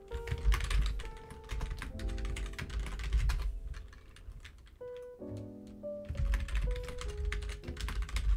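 Typing on a computer keyboard: a quick run of keystroke clicks with a short lull about halfway through, then more typing. Background music with held notes plays underneath.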